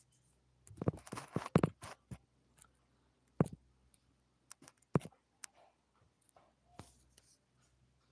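Handling noise: a quick cluster of knocks and scrapes about a second in, then three single sharp knocks spaced about a second and a half apart.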